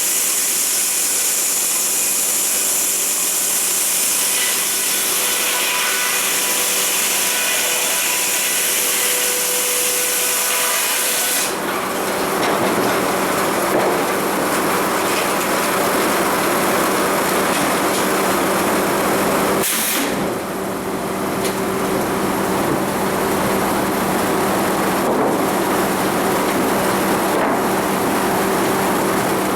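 An old sawmill running while sawing a cedar log: a loud, steady machine hum under sawing noise. About eleven seconds in, the bright hiss gives way to a lower, rougher noise.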